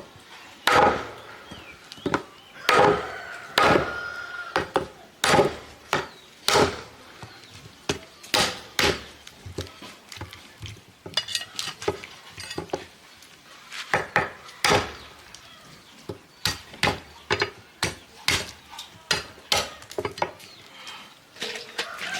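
Cleaver chopping on a wooden chopping block: a long run of irregular heavy strokes, some in quick pairs, with lighter taps between them.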